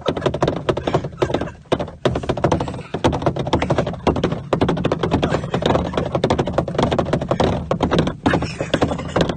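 Handling noise from a handheld camera being jostled: a dense run of irregular knocks, taps and rubs on the microphone over a steady low hum.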